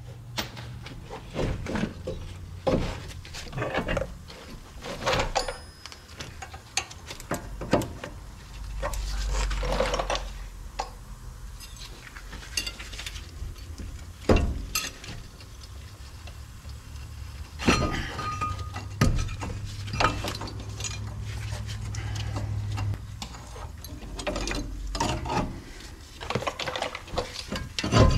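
Irregular metal clanks and knocks of hand tools and brake parts as the brake caliper is lifted off and the brake rotor is pulled from the hub.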